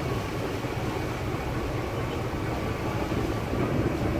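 Passenger ferry's engine running under way: a steady low rumble with an even rush of noise over it.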